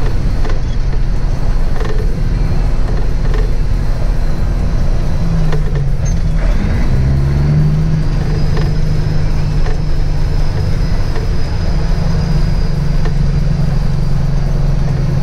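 Semi truck's diesel engine running under way, heard from inside the cab, with light creaks and rattles of the cab. About six seconds in the engine note dips and then climbs back up, as in a gear change on the manual ten-speed.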